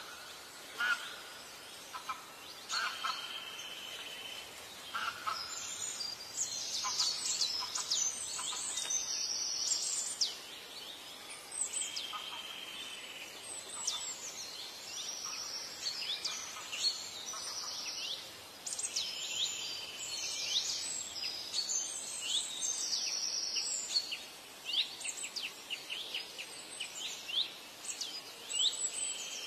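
Wild birds calling in a dense, overlapping chorus of quick downward-sweeping chirps and short trills, with some lower calls in the first third, over a faint steady background hiss.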